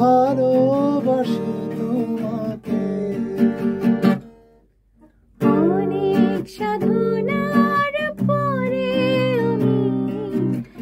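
Acoustic guitar strummed as accompaniment, with singing over it, in a Bangla love song. The music stops for about a second a little past the middle, then the guitar and voice come back in.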